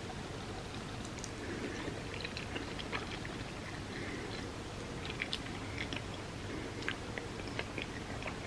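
A person chewing food, with scattered short wet smacks and clicks from about a second in, over a steady background hiss.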